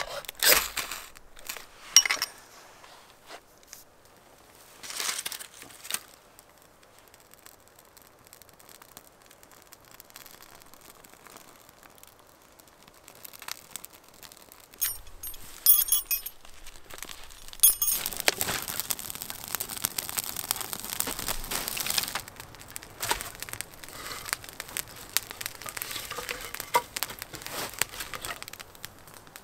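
Campfire being lit: dry tinder and kindling crinkling and snapping as it is handled, a few sharp clinks about halfway through, then a louder, denser crackle and rush as the fire catches for the last third.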